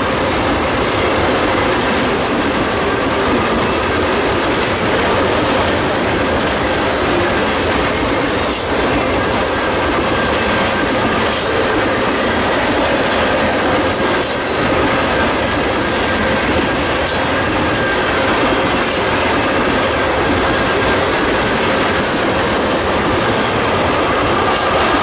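Loaded ethanol tank cars of a freight train rolling past at speed: steady noise of steel wheels on the rails, with faint steady whining tones of wheel squeal and occasional clicks.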